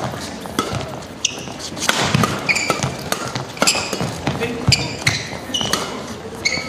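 Badminton doubles rally: a fast run of sharp racket-on-shuttlecock hits, about one every half second to a second, with short high-pitched squeaks of players' shoes on the court mat between the strokes.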